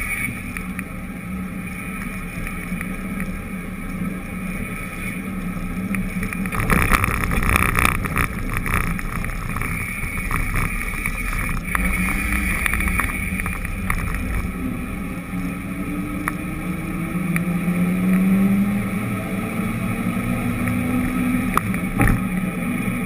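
Muffled engine hum and road noise from a moving vehicle. The engine's pitch climbs slowly in the second half, and there is a sharp click near the end.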